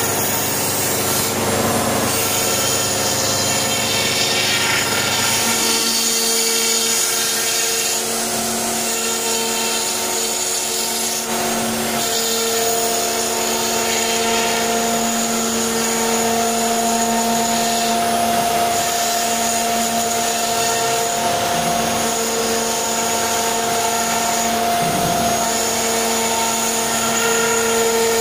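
CNC router's Hiteco electro-spindle running steadily while its bit cuts grooves into a wooden door panel: a steady whine with several pitches over cutting hiss. A lower rumble drops away about five seconds in.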